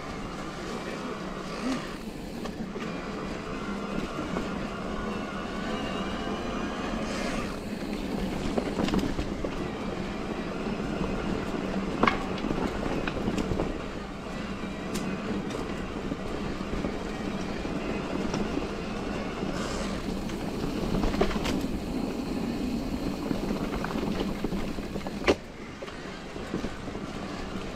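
Electric mountain bike ridden over a rough, leaf-covered trail: a steady hum and a rolling rattle from the bike over bumpy ground, with a sharp knock about twelve seconds in and another near the end.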